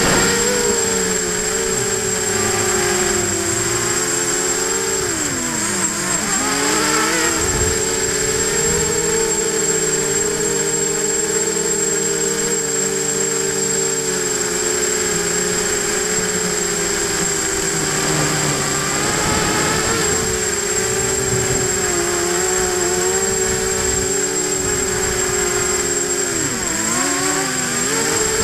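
Electric motors and propellers of a hexacopter whining steadily, heard from its own onboard camera. Their pitch dips and comes back up about five seconds in and again near the end. A steady high-pitched whine runs underneath.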